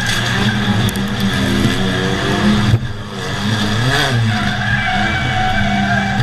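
Race car engines running and revving in a pack of cars on a short track, the engine pitch sliding down and up again around the middle.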